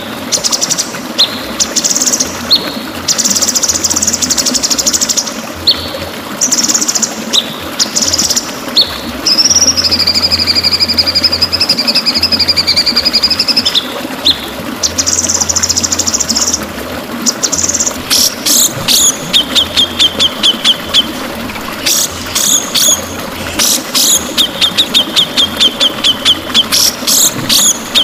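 White-rumped shama (murai batu) singing in a long run of fast, high trills and rapid clicking rattles, with one long drawn-out whistle in the middle, over a steady background hiss.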